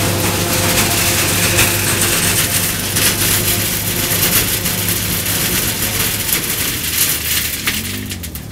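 New Holland TS115A tractor and pull-type Miller Pro 790 forage chopper running close by: a steady engine drone under a loud rushing hiss from the chopper, dropping away near the end as the machinery moves off down the field.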